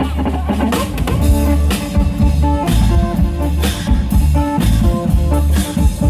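Isan klong yao (long-drum) band playing an upbeat lai: a steady stream of drum strokes over heavy bass, with a plucked phin melody on top.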